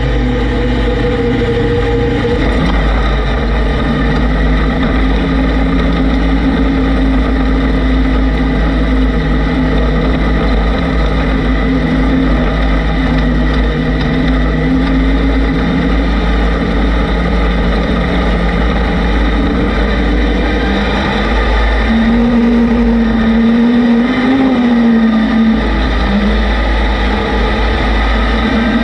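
Off-road vehicle engine running under way. Its pitch holds steady for most of the stretch, then rises and wavers about two-thirds of the way through. A constant deep rumble, typical of wind on the microphone, lies underneath.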